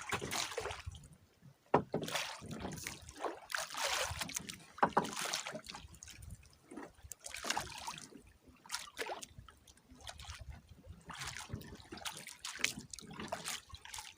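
Water splashing and lapping in irregular bursts during shallow-water fishing, with one sharp knock about two seconds in.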